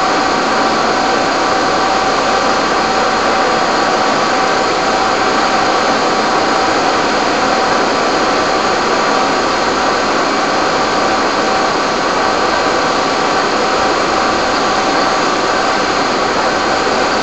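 Fire engines running their pumps, a loud steady mechanical drone with a few steady whining tones and no breaks.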